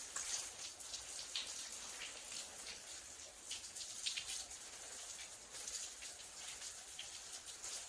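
Water from a garden hose spattering and dripping onto stacked shiitake logs as they are soaked: a steady hiss broken by many small irregular patters.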